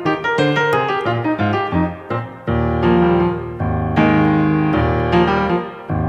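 Solo piano playing an instrumental interlude between the verses of a hymn. It plays a run of quick, separate notes, then full, sustained chords with deep bass from about two and a half seconds in.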